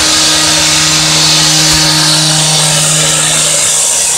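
Construction machinery on a rail work site running steadily and loudly, a power-tool-like steady hum under a dense hiss that holds even throughout.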